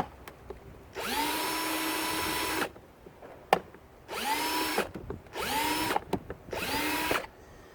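Power drill with a Phillips bit whirring in four bursts, one long then three short, each spinning up in pitch and winding down as it backs out screws.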